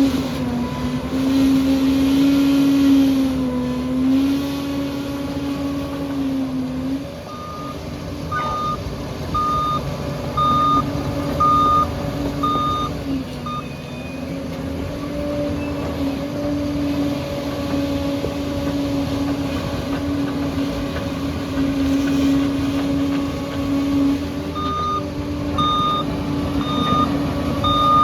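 Liebherr crawler bulldozer's diesel engine running under changing load. Its reversing alarm beeps about once a second for several seconds midway and again near the end, the signal that the machine is backing up.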